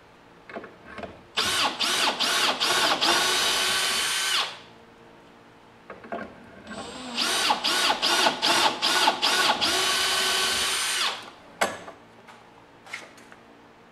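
Power drill run twice, each time in a series of short trigger spurts and then held in a steady high whine for a second or so, drilling dowel holes through a dowel jig into the pine boards' edges. A couple of light clicks follow near the end.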